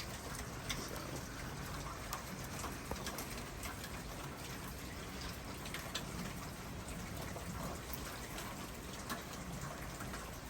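Steady rain falling from a warm front, an even hiss with scattered taps of individual drops.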